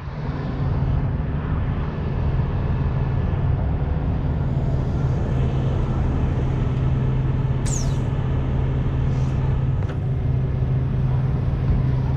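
Heavy tow truck's diesel engine running steadily while its hydraulic winch controls are worked to take up the cable on the stuck semi. A short high falling squeak comes about eight seconds in.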